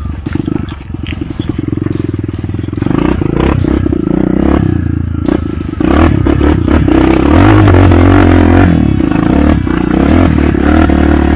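Trail motorcycle engine running under way over rough ground, with rattling and knocks from the bike, getting louder about six seconds in as the engine is given more throttle.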